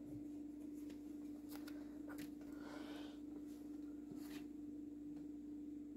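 Quiet room tone with a steady low hum, broken by a few faint clicks and rustles of a glass bottle being handled.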